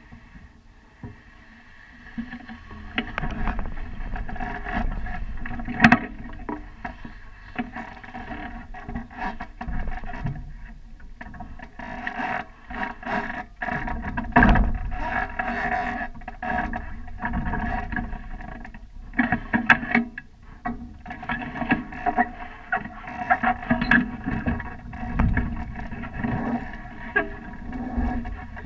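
Water lapping and splashing against the hulls of a Nacra 570 catamaran getting under way, with low gusts of wind on the microphone. The sound grows louder a few seconds in as the boat starts moving.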